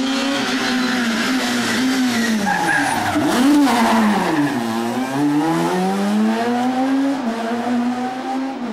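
Rally car engine running at high revs, its pitch dropping sharply about three and a half seconds in as it slows for a tight hairpin, then climbing again as it accelerates out of the turn. There is a burst of tyre noise around the turn.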